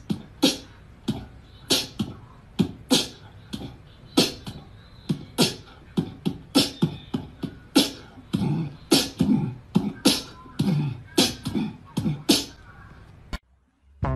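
A quick, irregular run of sharp clicks and pops, a few a second, with deeper thuds mixed in over the later seconds. It cuts off suddenly shortly before the end.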